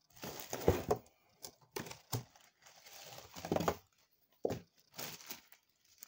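Clear plastic wrapping crinkling and rustling in four or five irregular bursts as a packaged stick vacuum's body is handled in its cardboard box.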